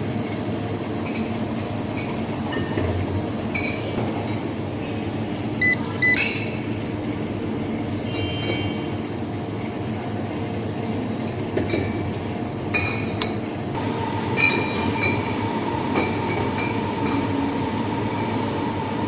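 Scattered light clinks and knocks of glass and metal coffee gear being handled and set down, over a steady low background rumble. A faint steady tone joins in near the end.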